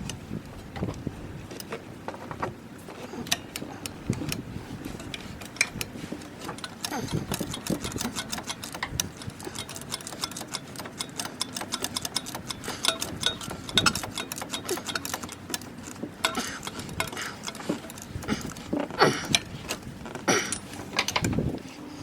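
A run of rapid, irregular mechanical clicks and clinks over a faint steady hum, the clicks growing denser and louder about a third of the way in.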